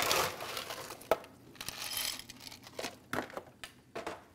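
Rustling and crinkling, with a few sharp clicks and knocks, as ice is fetched for a glass.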